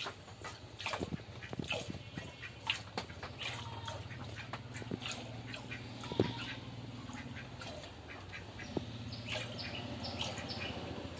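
Milk squirting in short spurts into a plastic bucket as a cow is milked by hand, at about two squirts a second. A low steady hum runs underneath from a few seconds in.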